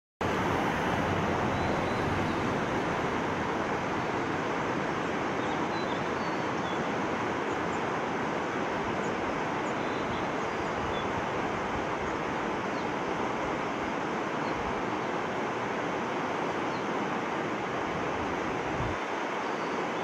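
A steady rushing outdoor noise, with a few faint, short, high chirps scattered through it.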